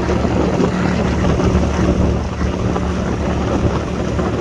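Boat engine running at a steady speed under a heavy rush of wind on the microphone and water noise, heard from aboard a small aluminum boat under way.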